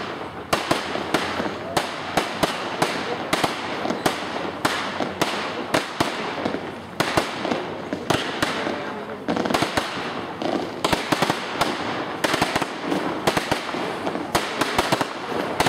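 Fireworks display: a rapid, continuous run of bangs, a few every second, from shells launching and bursting in the air.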